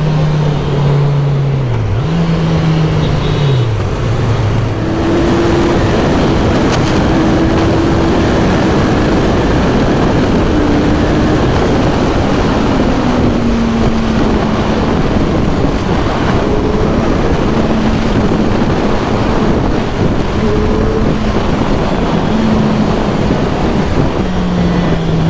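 Kawasaki Z1000SX inline-four engine running at highway speed under heavy wind rush on the bike-mounted microphone. The engine note falls twice in the first four seconds, then climbs to a higher pitch and holds roughly steady, easing a little lower later on.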